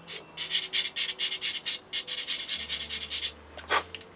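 Sanding sponge rubbed quickly back and forth with light pressure over the plastic edge of a model aircraft wing, profiling the edge left by the sprue. The strokes come at about five a second, stop a little over three seconds in, and are followed by one last stroke.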